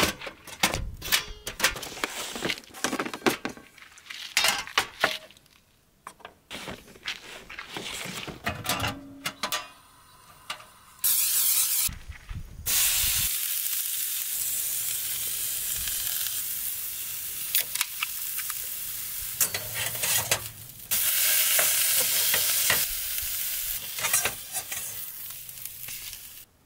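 A burger patty frying in a steel wok on a portable gas camp stove: a loud, steady sizzle through the second half. For the first ten seconds or so there are scattered clicks and knocks as the stove and pan are set up and handled.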